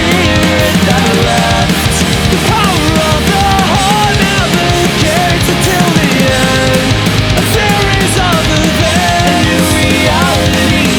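Instrumental passage of fast melodic punk rock with metal-inspired riffs: a full band of electric guitars, bass and drums playing continuously and loud, with melodic lines that bend and glide in pitch.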